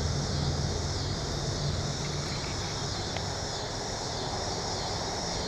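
Steady outdoor background: a low, distant engine-like hum that fades out about two seconds in, over a steady high-pitched hiss.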